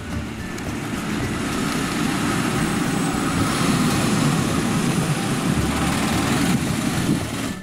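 Retro-styled red loop minibus driving toward the camera and past, a steady engine and tyre rumble that grows louder as it nears and falls away near the end.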